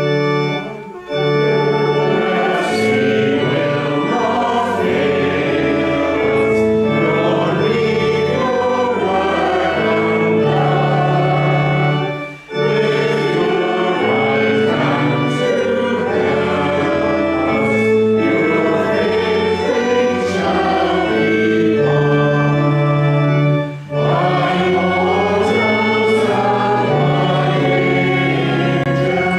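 A congregational hymn sung with organ accompaniment: long held chords under the voices, with brief breaks between the lines about every eleven seconds.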